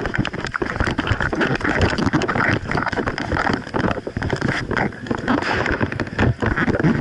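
Loud, continuous rustling and scraping of clothing and gear rubbing against a body-worn action camera, broken by many irregular knocks and footfalls as the wearer moves.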